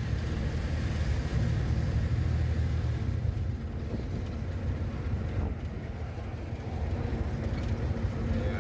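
Steady low rumble of engine and road noise from a vehicle driving along in traffic.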